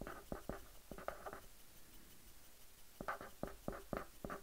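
Faint scratching of a pen printing a word in capitals on paper: a run of short strokes, a pause of about a second and a half, then another run of strokes.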